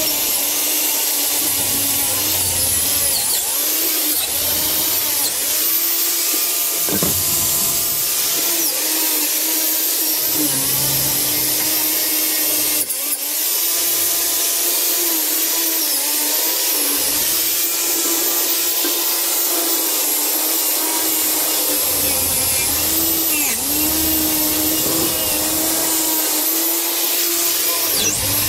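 Angle grinder with an abrasive head running continuously against a rusty metal trolley frame, grinding off rust and old muck. Its steady high whine dips in pitch again and again as the tool is pressed into the metal.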